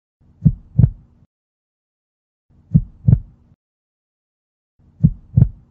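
Slow heartbeat sound effect: three low double thumps, lub-dub, a little over two seconds apart, with silence between them.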